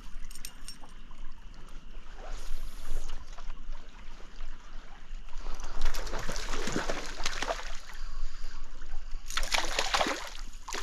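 Small trout stream's water running and splashing, with a longer stretch of louder splashy noise a little past the middle and a short burst near the end.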